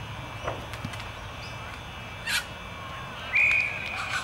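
Umpire's whistle: one short, steady high blast a little over three seconds in, over faint spectator voices.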